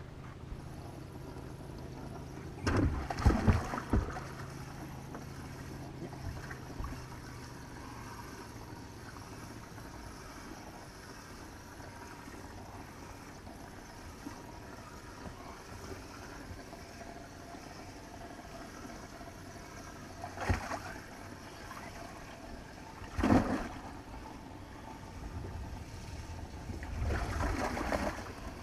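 Handling noise on a bass boat: a few sharp knocks and thumps against the boat, and a stretch of splashing, sloshing noise near the end. Under them is a steady low hum that stops about ten seconds in.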